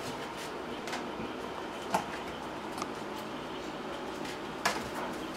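Great Dane puppies playing on a tile floor: a few sharp knocks and clicks, two louder ones about two seconds in and about four and a half seconds in, over a steady background hiss.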